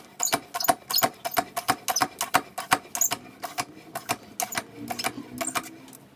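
Hand-lever hydraulic pump being worked stroke after stroke, a fast run of sharp metallic clicks, about four or five a second. It is pumping fluid into the MGF's Hydragas suspension to raise the system pressure towards about 400 psi.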